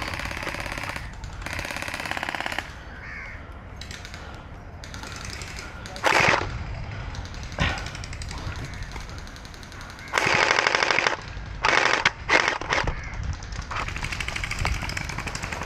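Electric gel blasters firing full-auto in several short bursts of very rapid clicking. The loudest burst lasts about a second, about ten seconds in, and two quick bursts follow it.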